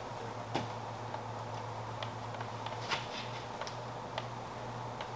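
A handful of short, sharp clicks at irregular intervals over a steady low hum.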